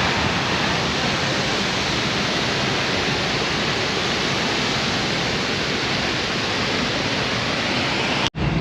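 Steady rush of falling water, like a river pouring over a mill dam, that cuts off suddenly near the end.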